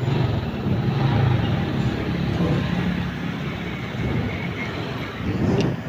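Motorcycle engine running at low speed with road noise, and another motorcycle passing close by near the end.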